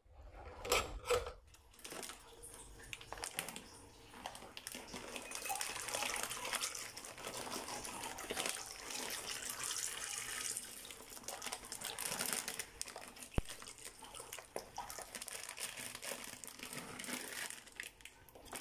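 Black beans tipped from a plastic bag into a glass bowl of water for soaking: uneven splashing and trickling of water with the plastic bag crinkling.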